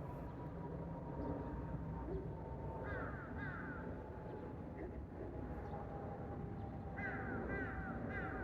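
Crows cawing: a few caws about three seconds in, then another run near the end. Underneath is a faint steady rumble with a thin whine that slowly falls in pitch, which the uploader takes for the engines of an unseen airliner.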